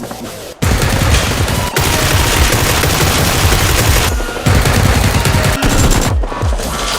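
Sustained rapid gunfire, a dense volley of automatic fire starting about half a second in and running on with repeated low thumps.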